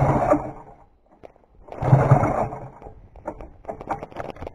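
1972 Ski-Doo TNT 440 snowmobile's two-stroke twin engine revving in two bursts, about two seconds apart, dropping away almost to nothing in between. Scattered clicks and rattles follow.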